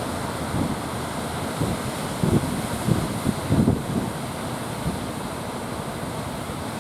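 Strong wind buffeting the microphone in irregular low gusts over a steady rush of surf.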